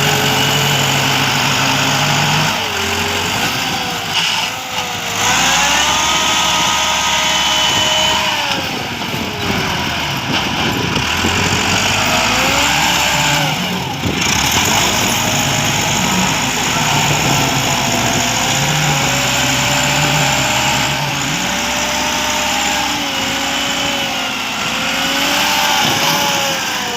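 Doosan excavator diesel engines running under load, their pitch rising and falling repeatedly as the hydraulics work.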